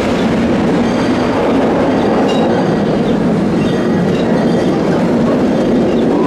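Open passenger cars of a 36-inch narrow-gauge train rolling past on the rails: a steady rumble and clatter of wheels on track.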